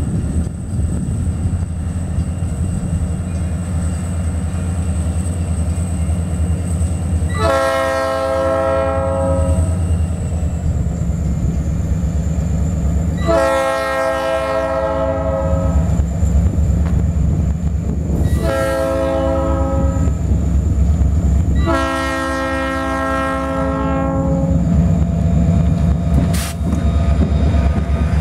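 Diesel freight locomotive's air horn sounding the grade-crossing signal: two long blasts, a short one and a long one, over the steady rumble of the locomotive's engine. The rumble grows louder near the end as the locomotive passes close by.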